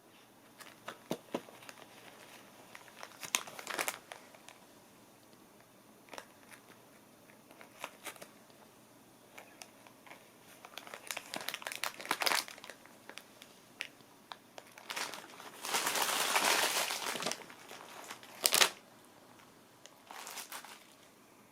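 A crinkly scrap crackling and rustling as a cat bats at it and bites it, in short scattered bursts. The longest crinkling comes about two-thirds of the way through, followed soon after by one sharp, loud crackle.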